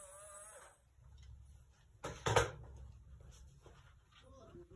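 Whine of the Huina R/C excavator's small electric motors working its arm, wavering in pitch and stopping under a second in. About two seconds in comes a short clatter, followed by a few faint clicks.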